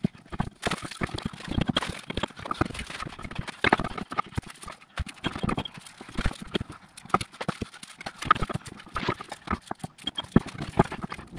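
Irregular metallic knocks, clicks and clunks as a car's front driveshaft, with its freshly greased inner CV joint, is worked and jostled behind the hub while being fitted back in.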